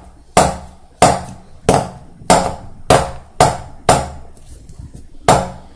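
Metal Barbie doll cake mould full of batter being tapped down on the kitchen counter to settle the batter and knock out air bubbles: about eight sharp knocks, nearly two a second, with a short pause before the last.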